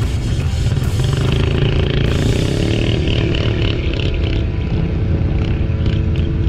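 ATV engine running steadily under way, with a dense low rumble of the ride.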